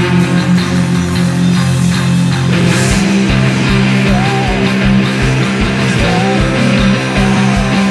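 Stoner rock recording: heavy distorted guitars hold low chords, and about three seconds in a crash and a steady pounding beat come in under them.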